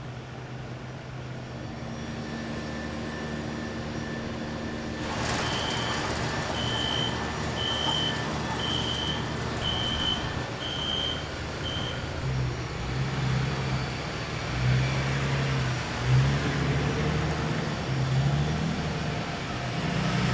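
A vehicle's engine running steadily. About five seconds in, the engine grows louder and a reversing alarm beeps about once a second, seven times. After the beeping stops, the engine note rises and falls several times.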